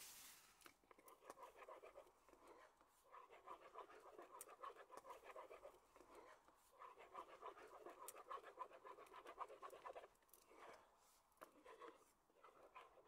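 Wooden spatula scraping and stirring eggs in a frying pan: quick, soft scrapes in runs, with a short pause about ten seconds in.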